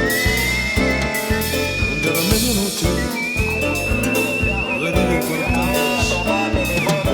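Music with a steady beat, carrying a single high, pure-toned melody line that slides up and wavers.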